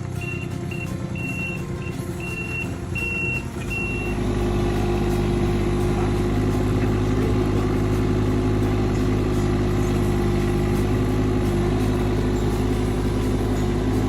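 Excavator engine running, with a row of about six high electronic warning beeps over the first four seconds. Then the engine comes up louder and runs steadily.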